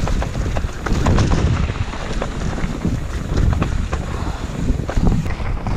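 Mountain bike riding downhill on a dirt trail: wind buffeting the microphone and tyres rumbling over the ground, with the bike rattling and clicking sharply over roots and bumps.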